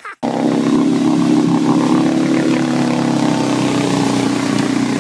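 A full-size SUV's engine running hard at high, steady revs as it ploughs through deep mud, a loud, even drone.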